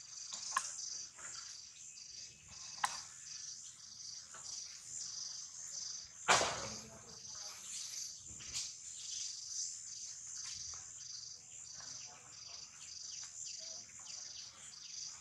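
Steady high-pitched chorus of insects, a shimmering buzz that pulses continuously, with a few faint clicks and one brief, louder noisy knock about six seconds in.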